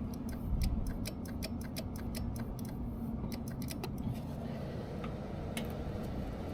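A run of light, irregular clicks and ticks, several a second, over a steady low hum; the clicking thins out after about four seconds.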